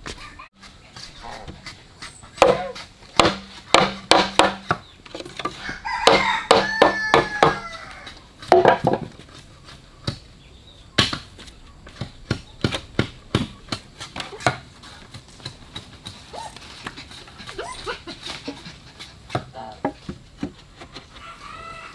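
Irregular chopping, a blade striking a wooden board stroke after stroke, with chickens calling in the background.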